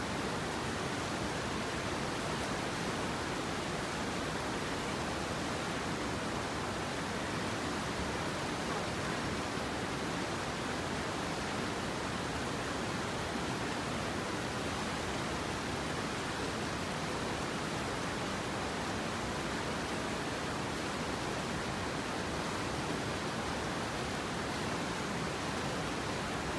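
Steady rushing of flowing river water, an even noise with no breaks.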